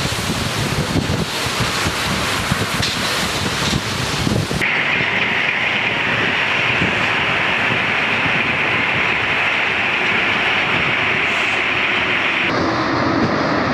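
MP 59 rubber-tyred metro train running through a tunnel, heard from the front of the train: a loud, steady rush of tyres and running gear. About a third of the way in a steady high hiss comes up, and near the end the sound turns to a lower rumble.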